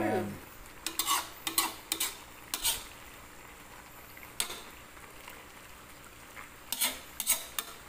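Metal ladle scraping and clinking against an aluminium cooking pan while stirring cassava leaves in coconut milk. There are about ten sharp scrapes in uneven clusters: several in the first three seconds, one in the middle, and a quick run near the end.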